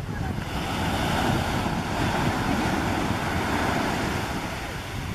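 Ocean surf breaking and washing up the shore: a rush of water that builds about a second in and eases off near the end. Wind rumbles on the microphone underneath.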